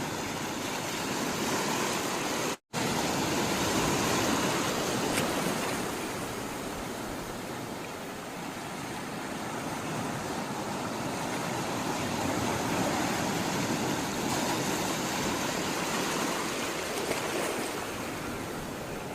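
Steady rush of flowing sea water, an even wash of noise, broken by a momentary cut to silence about two and a half seconds in.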